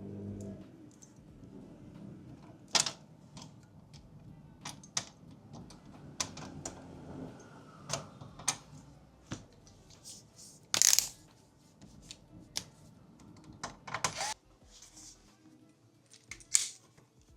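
Irregular small clicks and taps of hard plastic and metal parts being handled during work inside a desktop PC, with a couple of short rustling scrapes, over faint background music.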